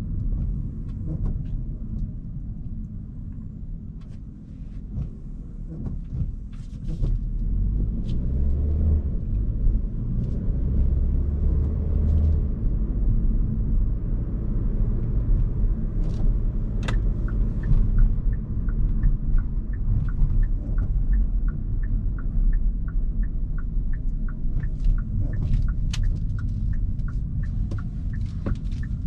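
Hyundai Kona Hybrid driving, heard as a steady low road and tyre rumble that grows louder about seven seconds in. Scattered clicks are heard throughout, and from about twenty seconds in there is a regular fast ticking.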